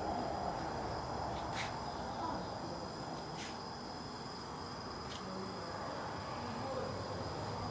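Night insects, crickets, trilling as one steady high-pitched tone, with a few faint clicks about a second and a half, three and a half, and five seconds in.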